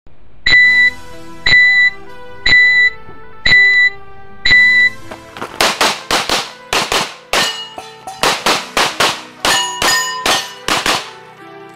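Music with five evenly spaced high beeps, one a second, then a quick, irregular string of sharp cracks: handgun shots.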